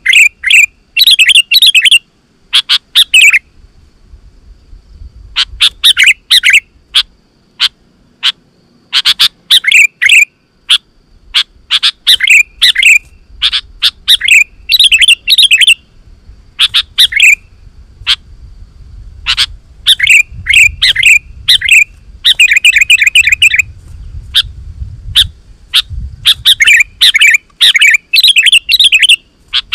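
Sooty-headed bulbul singing vigorously in loud bursts of quick, bubbling chattering phrases, separated by short pauses, with a faint low rumble underneath.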